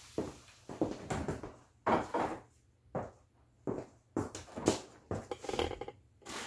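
Kitchen handling noises: a run of a dozen or so short knocks and clatters as a glass dish and the refrigerator door are handled.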